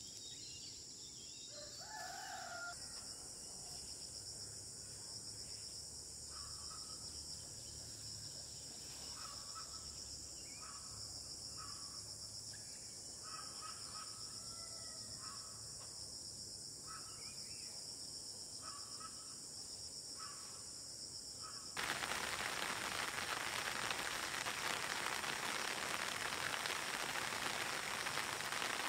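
Chickens making short, repeated calls over a steady high insect drone. About three-quarters of the way through, a louder steady hiss sets in suddenly and covers them.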